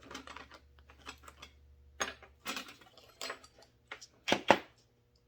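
Clicks, clinks and light knocks of the chainsaw's recoil starter spring and housing being handled while the spring is fitted back in, with two louder knocks near the end.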